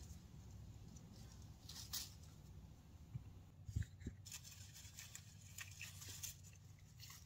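Faint, scattered rustling and crackling of leaves and stems as gourds are picked by hand from the vine, with a few slightly louder snaps about two and four seconds in.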